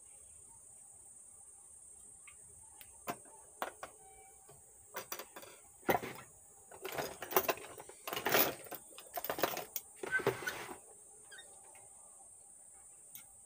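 Tools and small parts being handled on a metal-and-wood workbench: a few sharp clicks, then a run of clattering and rustling between about five and eleven seconds in, as a power transistor is fitted to an amplifier's heatsink. A steady high insect chirring sits under it throughout.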